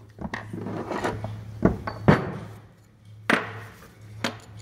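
Tools and metal transmission parts clinking and knocking against the gearbox case and workbench: several sharp knocks, the loudest about two seconds in, with softer clinks between. A steady low hum runs underneath.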